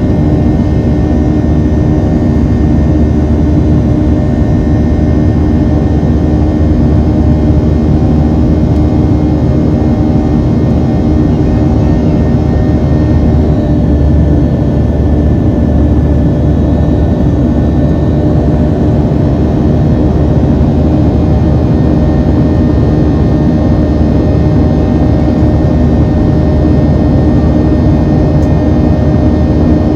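Boeing 737-700's CFM56-7B turbofan engines heard inside the cabin, running steadily with a loud engine buzz: a drone of many layered steady tones over a deep rumble.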